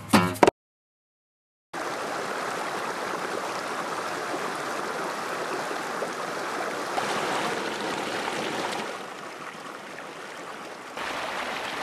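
A strummed acoustic guitar cuts off half a second in; after about a second of silence, a mountain stream runs over rocks as a steady rush of water. The water drops quieter for about two seconds near the end, then comes back up.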